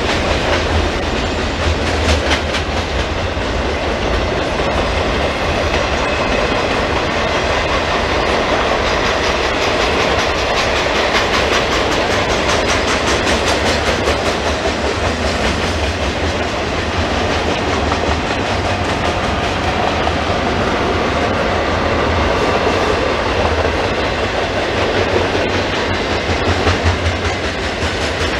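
Double-stack intermodal container train passing at speed: a steady rumble of the well cars rolling on the rails, with rapid clickety-clack of wheels over rail joints.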